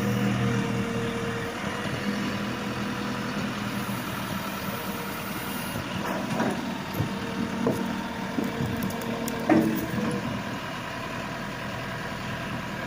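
Backhoe loader's diesel engine running steadily, with a few clunks and knocks from the machine between about six and ten seconds in, the loudest one about three-quarters of the way through.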